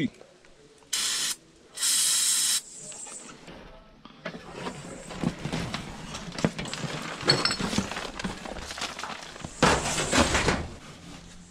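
Two short hissing bursts from an aerosol spray can, the second a little longer, followed by crackling and rustling as old rubber-backed car floor carpet is pulled up and handled, with a louder rustling rush near the end as it is thrown aside.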